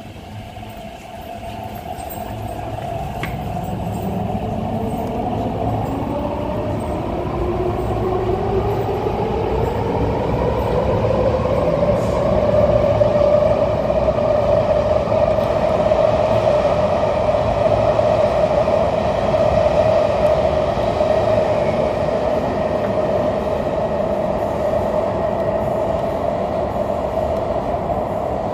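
East Rail Line R-Train electric multiple unit pulling away: the traction motor whine rises in pitch over about ten seconds and then holds steady as the train runs at speed. The rumble of the running train grows louder along with it.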